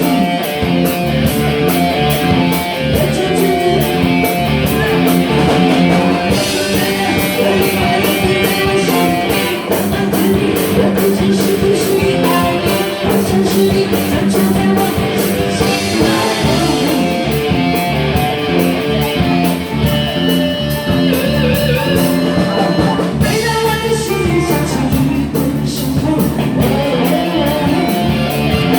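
A sung pop song: a voice singing over guitar and a steady drum beat.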